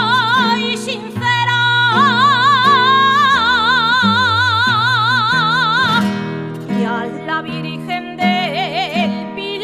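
Background music: a melody sung with a wide vibrato over an instrumental accompaniment, with one long held note through the middle.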